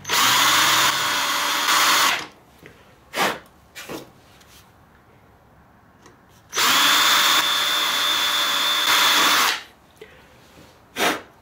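Cordless drill boring 3/16-inch pilot holes through a snowmobile's metal tunnel: two runs of about two and three seconds, the second with a steady high whine. A few short clicks come between them and near the end.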